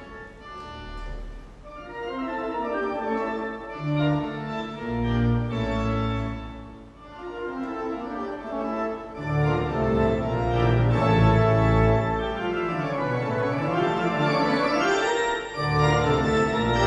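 Wurlitzer theatre pipe organ playing. It starts softly and builds to loud full chords with deep pedal bass notes, and near the end a run sweeps down and back up before a final swell.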